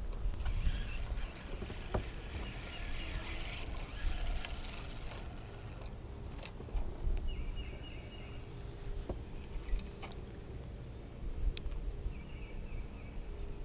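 Wind rumble and water around a small fishing boat on a lake, with a faint steady hum underneath. A few light clicks come through, and short high chirps come and go twice.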